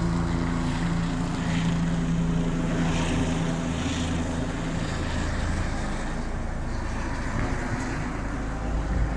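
Rescue helicopter flying across the sky: a steady engine and rotor drone with a low hum that thins out about halfway through as it moves off.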